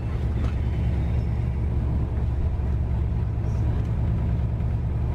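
Steady low rumble heard from inside a passenger train carriage as it runs into a station.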